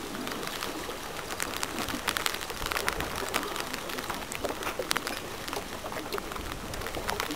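Light, irregular patter of water: many small drops and splashes, steady without any single loud event.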